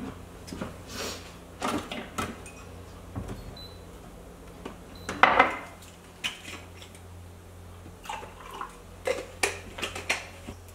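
Kitchen clatter: a cupboard door, a ceramic mug set down on the counter and a plastic bottle handled, heard as a string of separate knocks and clinks, the loudest about five seconds in.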